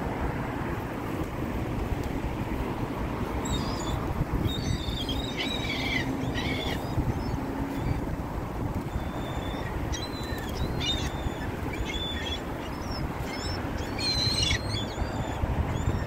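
Gulls giving short, scattered squawking calls over a steady low rumble of wind on the microphone.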